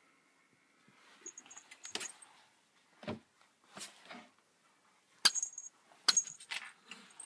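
Scattered light clicks and rattles with small metallic jingling, like keys or a little bell, and two sharper knocks about five and six seconds in.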